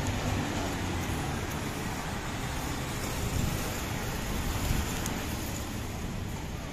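City street traffic noise, with a motor vehicle's engine running close by over a steady background of road noise.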